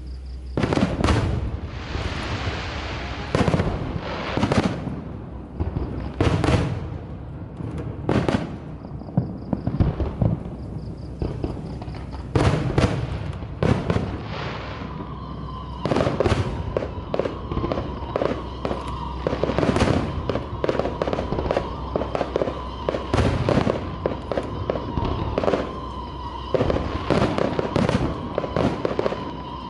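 Fireworks display: shells bursting in a string of separate bangs, then from about halfway a dense, rapid run of bangs and crackles over a steady high tone.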